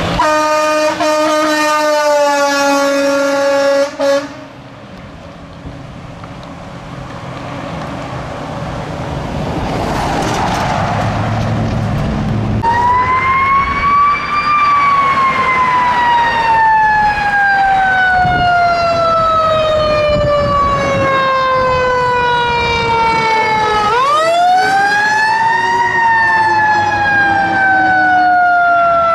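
A fire engine's horn blast, steady in pitch and held for about four seconds. Then comes a fire engine's siren on a Pierce wildland engine: it winds up, slowly sinks in pitch for about ten seconds, winds up again near the end and starts to fall once more.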